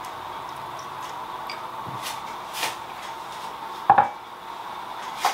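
Hands working raw chicken pieces in a stainless steel mixing bowl, with a few light taps against the bowl and one sharper knock about four seconds in.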